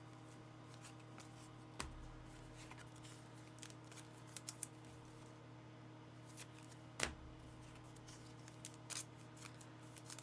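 Trading cards and packs being handled on a table: scattered light clicks and taps, with two sharper knocks about two and seven seconds in, over a faint steady electrical hum.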